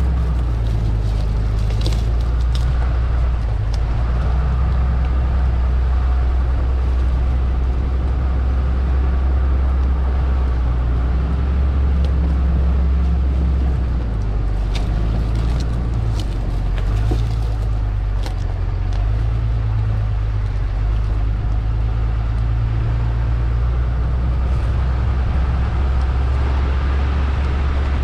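Diesel engine of heavy land-clearing equipment running steadily, its pitch shifting slightly about halfway through, with a few light clicks and knocks.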